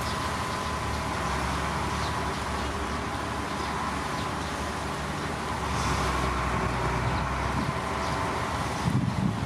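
Heavy diesel earthmoving machinery running steadily, with a few louder knocks near the end.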